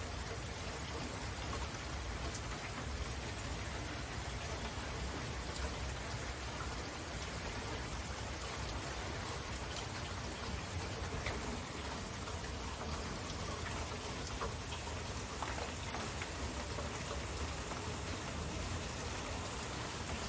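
Steady heavy rain falling, with scattered drops ticking close by and a low rumble underneath.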